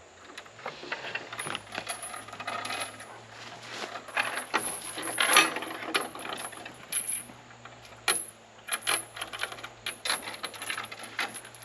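Metal chain links clinking and rattling in irregular bursts of sharp jingles, loudest about five seconds in, over a low steady hum.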